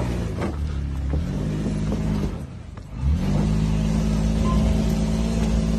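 Toyota Land Cruiser Prado's engine revving under load as it climbs a cross-axle section of dirt trail. The revs rise, drop away briefly about two and a half seconds in, then climb again and hold steady.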